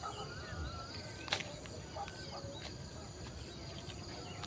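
Field ambience of insects trilling in a steady pulsing drone, with a few short bird calls near the start and one sharp click about a second in.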